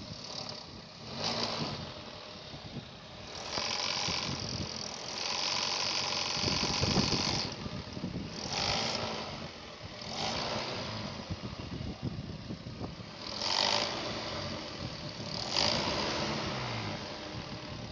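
Car engine running with a rattling noise that rises and falls several times, typical of a broken alternator clutch (decoupler) pulley, which the mechanic finds to be the cause.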